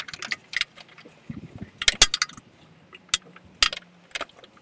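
Irregular sharp metallic clicks and clinks of a long-reach 13 mm socket on an extension bar being worked on an exhaust mounting bolt, with a handful of louder clicks spread through.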